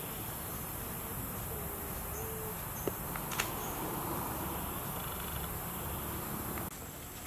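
Forest ambience: a steady high insect drone, with two sharp clicks, like a twig snapping underfoot, about three seconds in.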